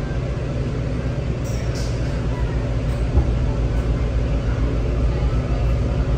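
Inside a WMATA 7000-series Metrorail car running between stations: a steady low rumble of the train in motion on the track.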